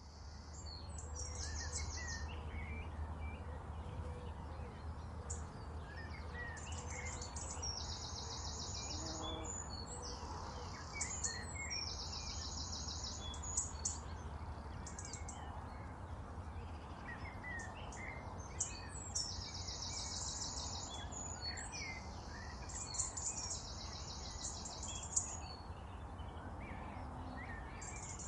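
Birds chirping and calling, with a high rattling trill about a second long repeated every few seconds, over a steady low rumble.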